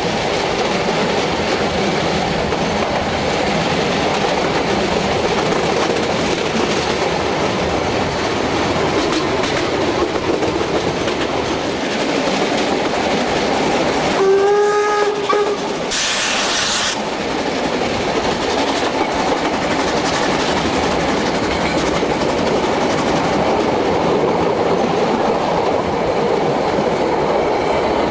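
Metre-gauge Harzer Schmalspurbahn steam train running, heard from an open carriage window: steady rolling noise of the wheels on the rails. About halfway through, the steam locomotive's whistle sounds one blast of about a second and a half, followed by a short hiss.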